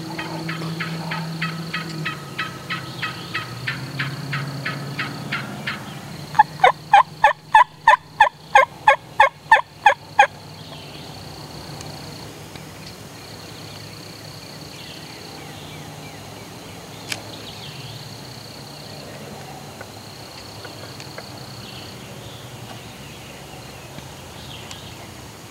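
Wild turkey yelping: a loud run of about a dozen evenly spaced yelps, roughly three a second, starting a few seconds in. Before it comes a quieter run of quick, higher notes.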